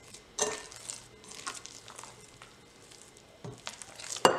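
Wet sourdough dough squelching in a glass bowl as a hand squeezes and pinches it to work in salt and water: irregular short squishes, with a sharp click near the end.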